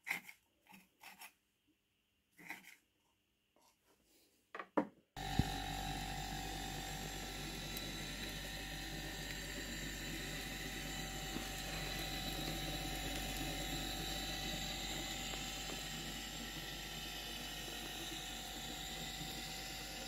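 A few short taps and clicks, then from about five seconds in an old refrigerator compressor, rigged with plastic tubing as an air pump, starts and runs with a steady hum and a faint whine.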